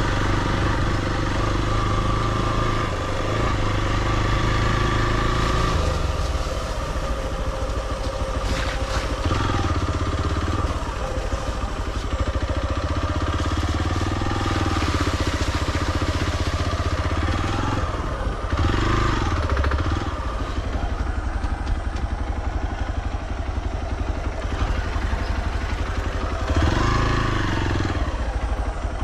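Hero XPulse 200's single-cylinder engine running as the motorcycle is ridden along a dirt trail. The engine note rises and falls a few times with the throttle.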